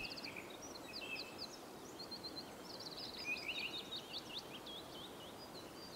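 Faint birdsong: several small songbirds chirping, with quick rattling trills and short whistled notes sliding up and down, over a soft steady hiss.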